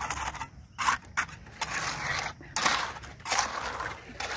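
Steel hand trowel scraping and pressing wet concrete, in a run of short scraping strokes with brief pauses between them.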